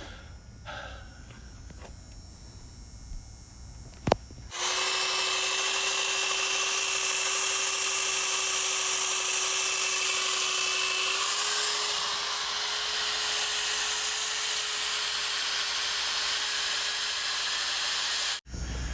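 Electric drill spinning a wire brush at a steady speed, starting about four and a half seconds in. Its pitch rises a little about halfway through, and it cuts off abruptly near the end.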